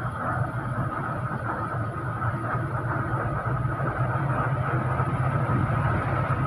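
Steady engine and road noise of an intercity bus on the move, heard from inside the cabin, a low hum under a rushing noise that grows a little louder in the second half.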